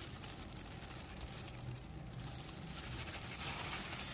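Faint rustling and crinkling of a thin clear plastic bag being handled close to the microphone.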